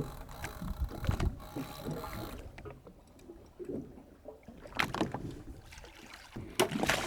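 Ambient sound aboard a fishing boat at sea: an uneven low rumble of wind and water with a few sharp knocks about a second in and near five seconds.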